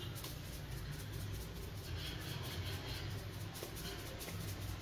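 Faint room noise with a steady low hum and no distinct event; a light rustle comes up in the middle.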